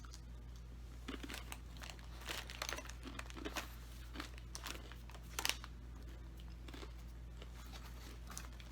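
Irregular crackling and crunching as crunchy maple granola with puffed rice, almonds and dried cranberries is handled in its pouch and eaten. The sharpest crack comes about five and a half seconds in.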